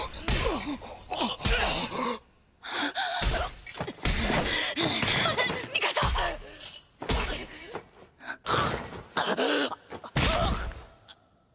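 Anime sound effects of a beating: a run of hard blows and kicks landing on a body, with gasps and groans between the hits.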